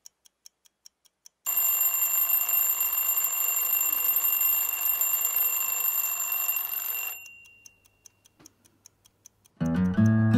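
A clock ticking about four times a second, then an alarm clock ringing loudly for about six seconds before it cuts off, with the ticking coming back. Acoustic guitar music starts near the end.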